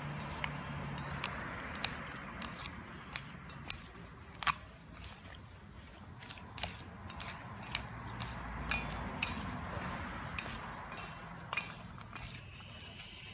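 Chopsticks tossing cut long beans in a stainless steel bowl: irregular sharp clicks of the chopsticks tapping the bowl over the soft rustle of the beans being turned.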